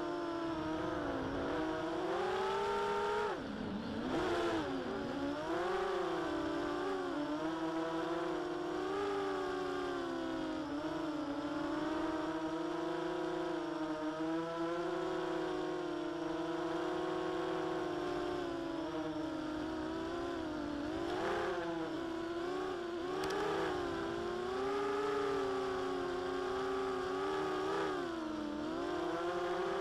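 Small quadcopter's electric motors and propellers whining, heard from a camera on board. The pitch swoops up and down as the motor speed changes, dropping sharply about three seconds in and then climbing back.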